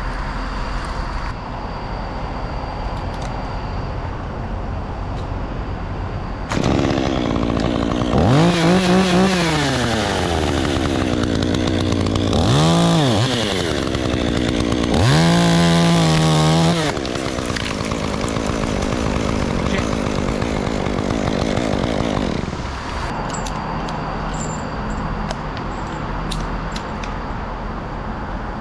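Two-stroke chainsaw running, revved up three times. Each rev climbs to full speed and falls back; the third is held longest. A steady low motor or traffic hum lies under it before and after.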